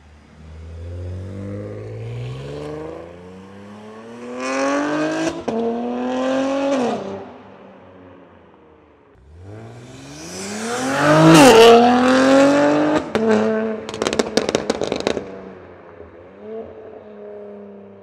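BMW S58 twin-turbo straight-six in a G80 M3 with a DCE titanium equal-length resonated midpipe and catless downpipes, accelerating hard twice, the pitch climbing steeply with a quick upshift about five and a half seconds in and another about eleven and a half seconds in. On lift-off a rapid run of exhaust crackles and pops follows, and the engine then settles to a low steady tone as the car drives away.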